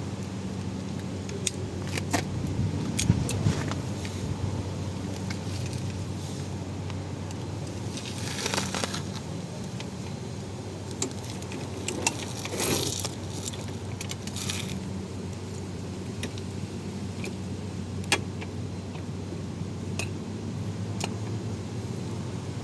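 Scattered metallic clinks and rattles of hand tools and parts handled during wheel-hub reassembly, with two short scraping rushes about a third and halfway through, over a steady low hum.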